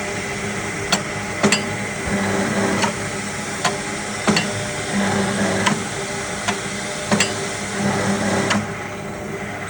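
A TOYO C32 electric rebar cutter's motor running with a steady hum, broken by about ten sharp metallic snaps of the cutting stroke shearing steel bars. A few stretches of under a second, where the machine works harder, grow louder.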